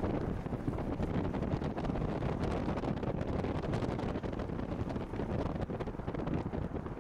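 Wind buffeting the microphone over the steady low noise of a moving vehicle.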